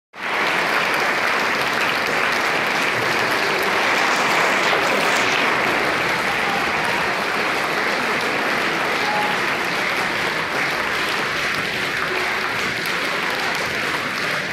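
Audience applauding steadily, easing slightly near the end.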